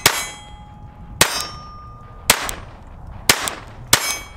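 Five .22 LR shots from a Ruger LCP II pistol, about one a second, each followed by the ring of a hit steel gong target.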